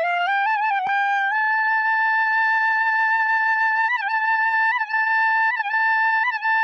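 Background music: a solo wind-instrument melody that steps upward with small ornaments, then holds one long note with brief decorative turns.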